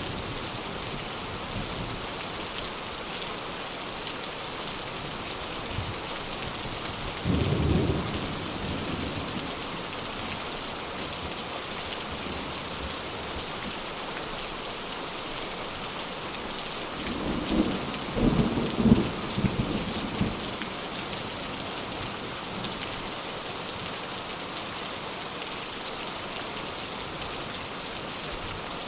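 Steady rain falling, with two rolls of thunder: a short rumble about seven seconds in, and a longer, uneven rumble with several swells a little past halfway.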